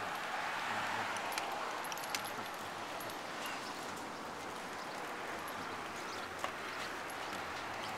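Steady rushing noise of a bicycle moving along a paved street, with a few sharp clicks.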